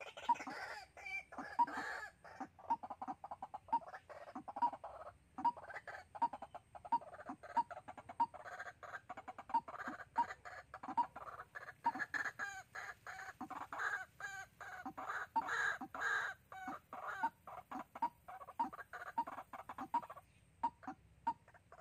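White-breasted waterhens calling: short notes repeated about one or two times a second, swelling into a dense run of overlapping calls in the middle, then thinning out again.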